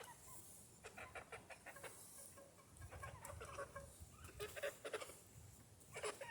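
Backyard chickens clucking faintly in several short runs of quick calls.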